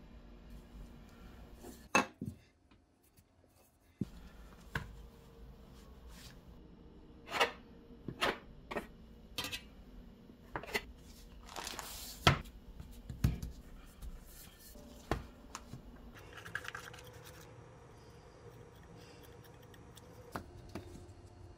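Kitchen handling sounds on a countertop: scattered sharp taps and knocks of a metal bench scraper against the work surface and dough, with a short scrape about halfway through. There is a brief rustle a few seconds later and a snip of scissors near the end.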